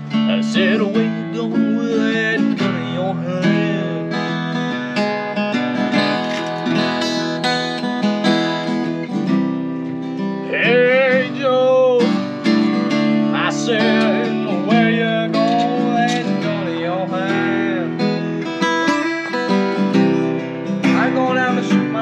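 Acoustic guitar strummed in chords while a young man sings along, his voice wavering with vibrato on held notes.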